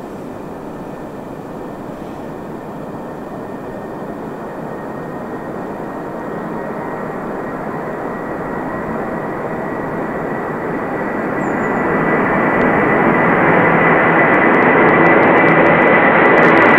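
Boeing 747's four jet engines running, a broad roar growing steadily louder as the aircraft comes closer, with a high steady whine that strengthens in the second half.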